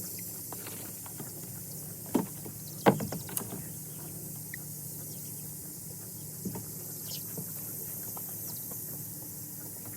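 Knocks and rustling from handling electric poultry netting and its posts, with two sharp knocks about two and three seconds in and a lighter one later, over a steady low background.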